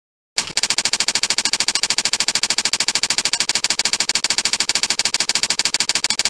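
Typing sound effect: rapid, even key clicks, about a dozen a second, starting abruptly just under half a second in.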